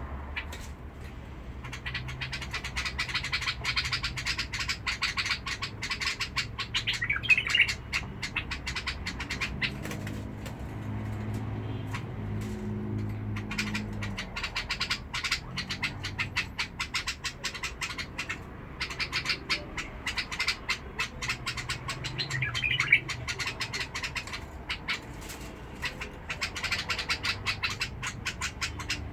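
A white-eared (Basra) bulbul singing in bouts of rapid, harsh-toned chattering, with a louder call in two of the bouts. A low drone runs underneath for a few seconds in the middle.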